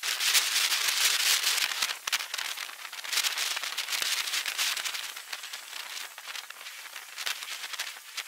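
Dense crackling, hissing noise made of many fine clicks. It is loudest in the first few seconds and fades toward the end.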